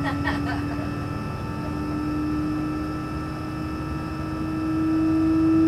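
Rolls-Royce AE 3007A turbofan on an Embraer 145 spooling up during engine start: a low whine rises slowly in pitch over a steady higher hum and a low rumble, and grows louder near the end.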